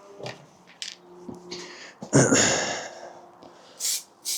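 Aerosol spray can of paint hissing in short bursts as a bicycle frame is sprayed, with a louder, fuller rush about two seconds in.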